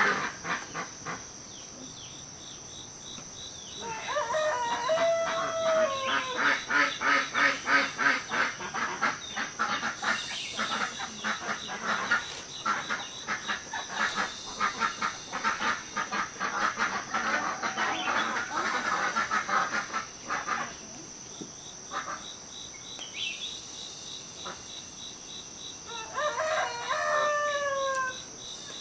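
A rooster crows twice, about four seconds in and again near the end, over dense clucking from a flock of chickens in between. A steady high insect buzz runs underneath.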